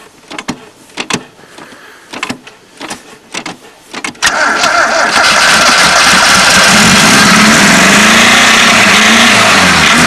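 1972 Toyota Corolla's four-cylinder engine cold-started at −15: slow, uneven cranking strokes, then it catches about four seconds in and runs loudly at high revs that rise and fall. The battery has only just enough charge to turn it over.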